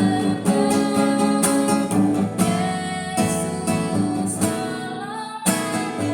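Music: a strummed acoustic guitar playing chords at a steady beat, with a brief break about five and a half seconds in.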